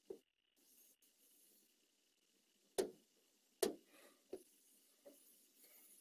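Five short, sharp clicks spaced irregularly over faint room noise, the loudest two about three seconds in.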